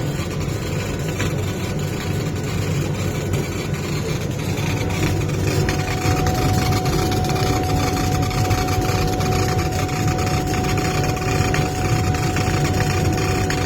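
Wood-cutting machine (CNC router or CO2 laser cutter) running steadily with a low hum and noise, and a thin steady whine that comes in about four and a half seconds in and holds.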